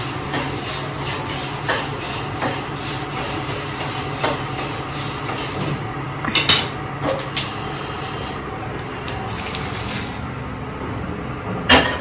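Wooden spatula stirring and scraping black peppercorns dry-roasting in a kadai, with scattered clicks and a few sharper knocks against the pan, over a steady low hum. Near the end a single loud knock, a wooden pestle striking a steel pot of roasted spices.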